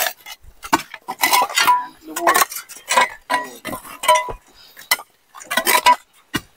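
Steel crowbars and hoes striking concrete and rock, an irregular run of about a dozen sharp metallic clanks that each ring briefly, as a concrete floor is broken up.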